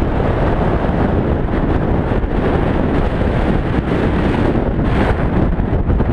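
Strong wind buffeting the microphone: a loud, continuous, gusting low rumble.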